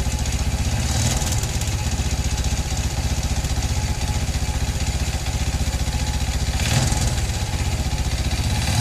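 Warmed-up engine idling with an even, steady beat, being checked for a metallic knock that shows most when the engine is cold. Two brief hissy bursts come about a second in and near the end.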